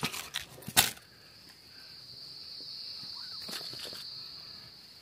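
A few sharp clicks and scrapes of stones as a hand digs in gravelly soil, the loudest just under a second in, followed by an insect's steady high-pitched buzz.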